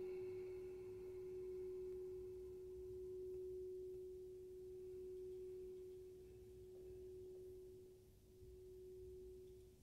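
Crystal singing bowl ringing out with one steady pure tone after being played, its higher overtones already gone. The tone slowly wavers in loudness and dips briefly near the end.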